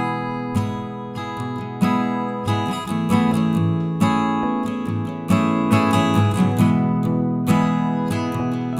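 Background music led by a strummed acoustic guitar, with chords changing every second or so.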